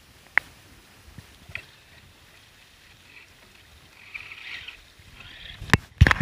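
Faint wash of water along the hull of a small sailboat under sail, with a sharp click about half a second in and a weaker one about a second later. Loud knocks shortly before the end.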